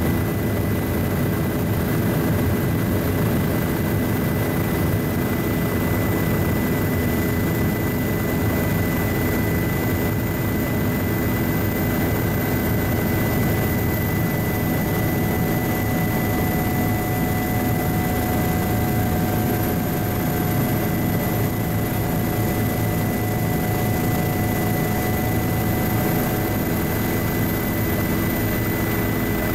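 Helicopter in steady flight, heard from inside the cabin: a constant engine and rotor drone with steady high whining tones over it.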